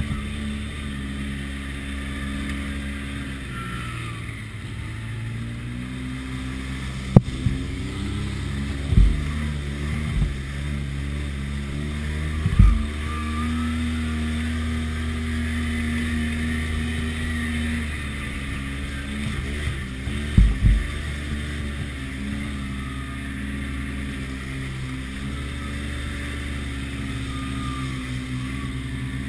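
Side-by-side UTV engine running under way, heard from the cab, its note rising and falling with the throttle and held steady for a few seconds in the middle. A sharp knock comes about seven seconds in, and dull thumps follow now and then as the machine goes over rocks and ruts.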